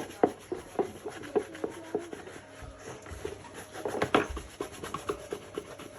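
Rhythmic hand scrubbing, short rubbing strokes about three a second, with a louder knock about four seconds in.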